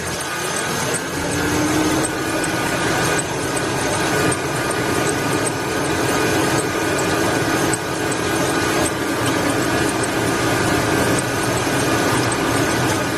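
2005 GMC Sierra engine idling with its serpentine belt drive running. A faint high chirp repeats about twice a second, the squeak that the owner traced to a worn serpentine belt and idler pulley.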